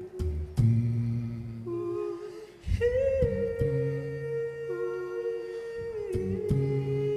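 Layered a cappella vocal loops: several hummed notes held together in harmony over low sung bass notes, the chord shifting about three seconds in and again near the end. A few sharp clicks cut through.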